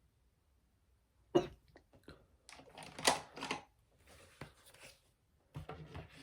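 A woman's single sharp hiccup about a second in, then small clicks and rustles of makeup being handled.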